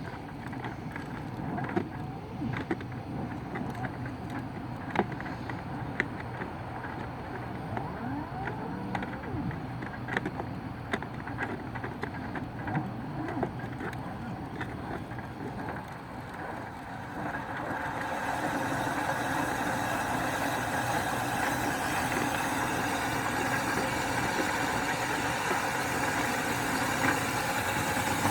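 Scattered clicks and light handling noise, then about seventeen seconds in a motor starts and runs steadily, a louder, even hum.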